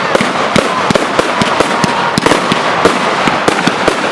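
Professional fireworks display going off: rapid, irregular bangs and crackling, several a second, over a continuous hiss.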